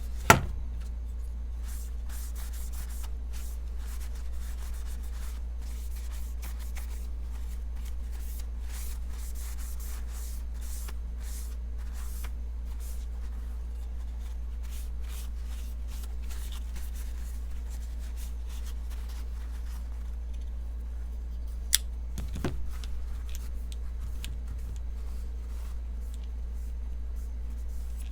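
Scratchy rubbing and light handling noises of a folding pocketknife being wiped down with rubbing alcohol, over a steady low hum. A sharp click comes right at the start and another about three-quarters of the way through.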